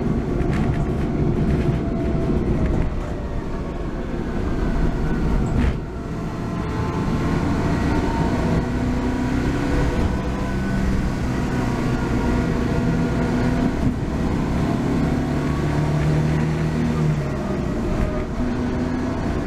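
Honda Acty HH6 kei van driving, with steady engine and road rumble and thin whining tones that slowly rise and fall with speed. This is the drivetrain noise that the transmission repair did not cure.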